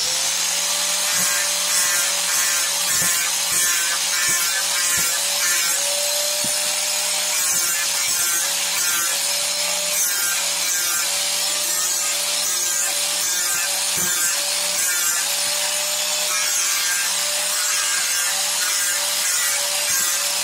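Electric power tool running with a steady motor whine while its cutter works wood, giving a scraping noise that swells and eases in repeated passes.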